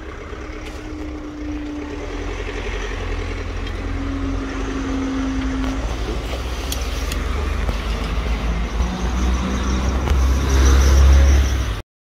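Level crossing barrier lifting, with a steady hum that slowly drops in pitch and stops about six seconds in. Road vehicle engines then rumble louder and louder as traffic moves off over the reopened crossing. The sound cuts off abruptly near the end.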